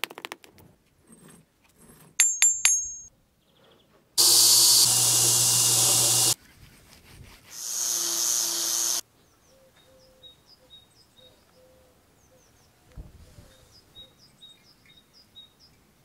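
Three or four quick, ringing metal strikes on the cast bronze. These are followed by a loud, steady power tool running against the metal for about two seconds, stopping abruptly, then running again more quietly for over a second. After that there are only faint, high repeated chirps.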